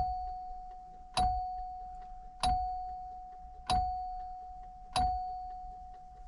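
Repaired seatbelt warning chime ringing a single bell-like tone, five strikes evenly spaced about a second and a quarter apart, each fading away before the next.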